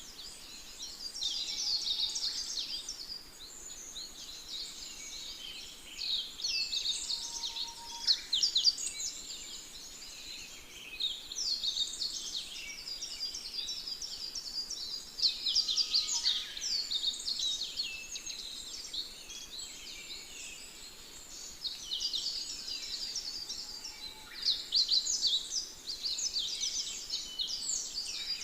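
A dense chorus of many small birds chirping, their rapid high calls overlapping and swelling louder now and then.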